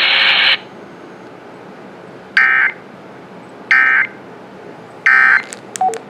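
Emergency Alert System end-of-message signal: three short bursts of warbling digital data tone, each about a third of a second and a little over a second apart, ending the flash flood warning. Before them a burst of radio hiss cuts off about half a second in, and near the end a quick run of short two-tone beeps begins.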